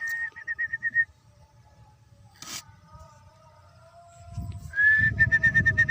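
A bird calling twice: each call is a rising note that breaks into a quick run of short notes at the same pitch, about seven a second. Under the second call there is a low rumble of wind or handling noise on the microphone.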